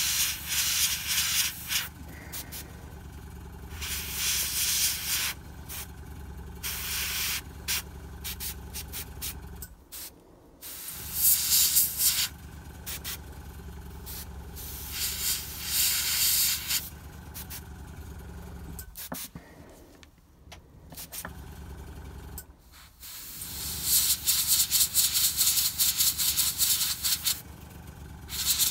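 Gravity-feed airbrush spraying paint in hissing bursts of about a second, with one long burst of several seconds near the end, over a steady low hum that drops out briefly a few times.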